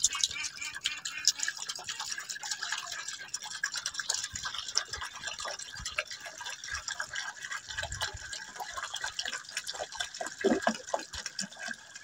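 Water poured from a jug into a birds' drinking bowl, splashing steadily as the bowl fills, with many small splashes and drips.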